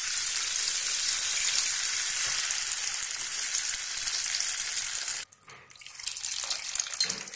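Tamarind water poured into a pan of shallots and tomato frying in hot oil, sizzling loudly. The sizzle breaks off abruptly about five seconds in, and a quieter sizzling follows.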